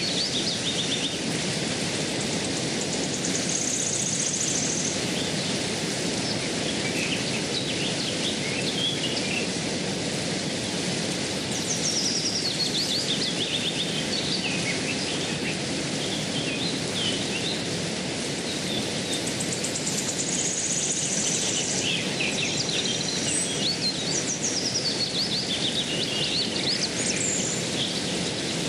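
Steady flow of a shallow rocky stream, with birds calling over it: a falling series of short high notes, heard three times, and a brief high steady whistle twice.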